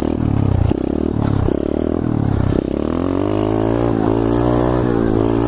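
A 2015 SSR 125cc pit bike's single-cylinder four-stroke engine revving in short throttle blips, then held at steady revs while the bike rides a wheelie on a dirt trail.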